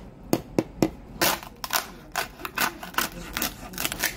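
Crisp roasted pork shoulder skin (lechon crackling) cracking and crunching under a knife. A few separate sharp cracks come first, then denser crackling as the blade cuts in; the sound shows how crispy the skin has roasted.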